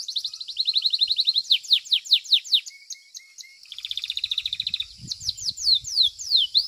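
Domestic canary singing continuously: fast trills of repeated downward-sweeping notes, switching to a new trill type every second or so.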